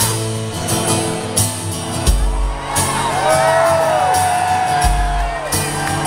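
Live rock band playing at full volume: an acoustic guitar strummed over bass and drums. Audience voices whoop and cry out over the music, most clearly in the middle stretch.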